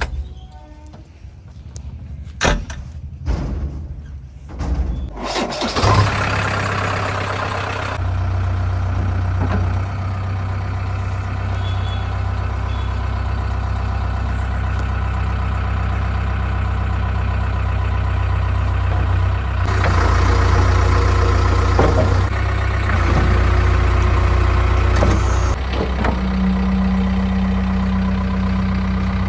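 JCB 3DX backhoe loader's diesel engine starting after a few scattered knocks, then running steadily and revved up for a few seconds past the middle. Near the end a steady hum joins it as the loader arm's hydraulics lift the front bucket.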